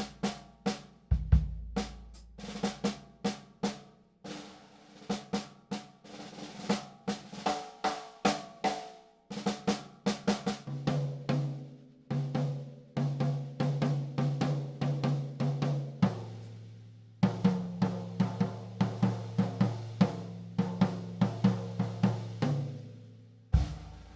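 Gretsch Name Band drum kit played in a sound check: fast runs of snare and tom strokes with bass drum hits, the toms ringing on after each stroke. The pitch of the ringing changes every few seconds as the playing moves from drum to drum.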